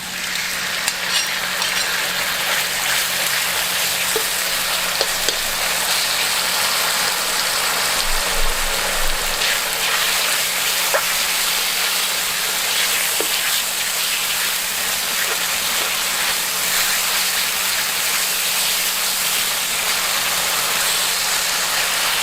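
Marinated chicken pieces sizzling steadily in hot oil in a pan, starting the moment they go in, over a steady low hum.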